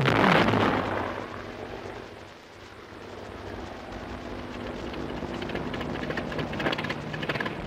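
Propeller aircraft flying past with a falling pitch, loudest at the start and fading over about two seconds. Then a piston aero engine runs steadily and builds, with rapid crackling pops near the end. The sound comes from an old film soundtrack played over a hall loudspeaker.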